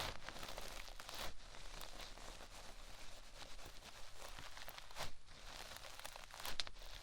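Hands rubbing and massaging both ears of a binaural microphone at once, giving close, crinkly rustling friction with a few sharper scrapes.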